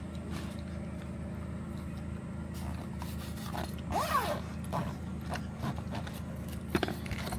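A vehicle engine running with a steady low hum. A short squeak rises and falls about four seconds in, and a few clicks come near the end.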